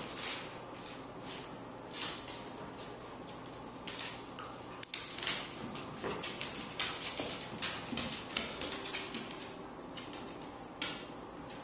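Two dogs play-wrestling on a hardwood floor: irregular sharp clicks and taps of claws and paws on the boards. They come now and then at first, then thick and fast through the middle, with one more near the end.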